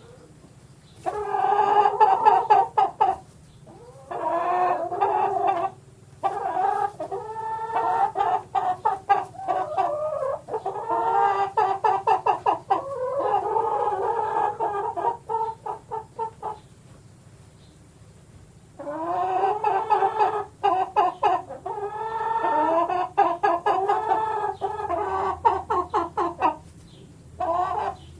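Hens clucking and cackling in repeated bursts of quick, pitched clucks, some ending in drawn-out calls, with short pauses between bursts and a longer pause a little past halfway.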